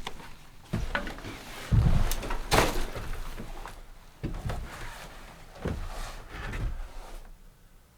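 A series of irregular thumps and knocks, about six, the loudest a heavy low thump about two seconds in followed by a sharp knock.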